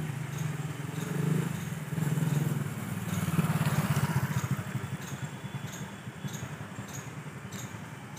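Small engine running with a fast, even firing beat, growing louder about three seconds in and then fading away.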